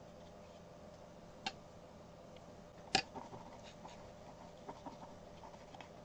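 Faint ticks and taps of a watercolour brush dabbing paint onto rough watercolour paper. A sharper click comes about a second and a half in, and a louder one about three seconds in, over a low steady hum.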